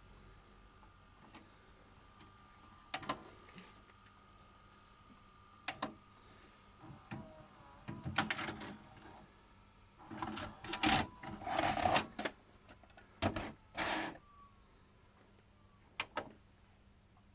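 Mechanical clicks and clunks from an NEC VN-405 VHS video cassette recorder's tape transport and buttons, coming in scattered groups with the busiest stretch about ten to twelve seconds in.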